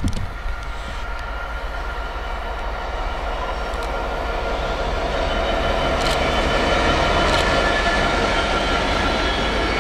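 A train approaching and running past on the main line, its noise growing steadily louder through the first half and then holding. A steady whine sits over the rumble of the wheels, with a few sharp clicks.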